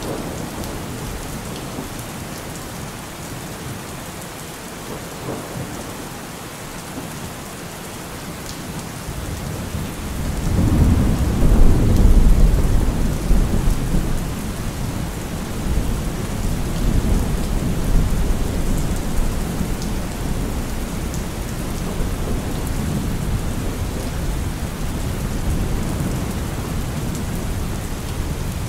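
Steady rain with thunder: a low rumble builds about ten seconds in, is loudest around twelve seconds, then keeps rolling under the rain.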